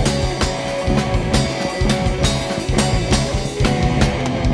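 Rock band playing: a drum kit keeps a steady beat of hits under sustained guitar and bass notes.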